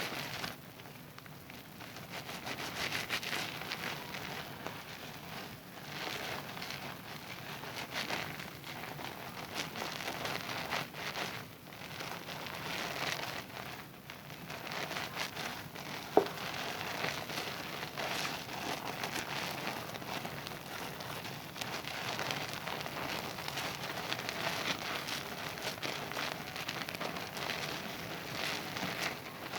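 Zest bar soap being lathered in wet hands: an uneven wet squishing and crackling of foam that swells and eases, with one sharp click about halfway through.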